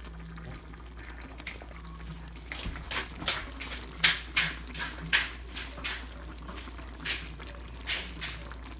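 Chicken afritada's thick tomato sauce simmering in a pan, bubbling with irregular wet pops that come thickest in the middle, over a steady low hum.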